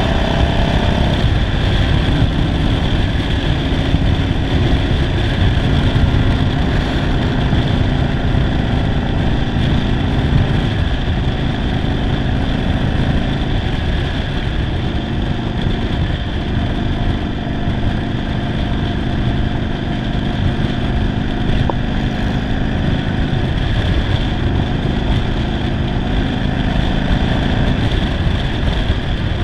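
1991 Yamaha Virago 750's air-cooled V-twin, converted to a single carburettor and running poorly, running steadily while the motorcycle is ridden.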